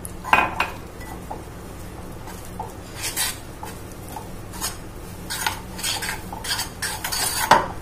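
A metal spoon stirring flour and lukewarm water into a dough in a bowl, scraping and knocking against the bowl in irregular strokes. The sharpest knock comes near the end.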